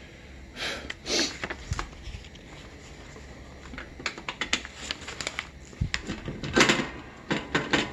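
Paper warning tag rustling and crinkling as a gloved hand handles it and pulls it off a compressor's electrical box, with scattered light clicks and taps.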